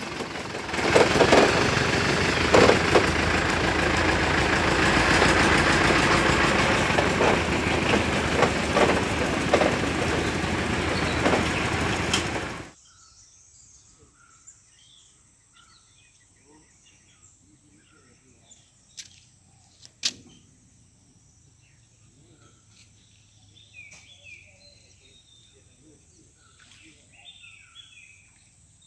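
Loud steady noise with a few knocks cuts off abruptly after about twelve seconds. Then a quiet riverside background follows, with scattered birds chirping and two sharp clicks near the middle.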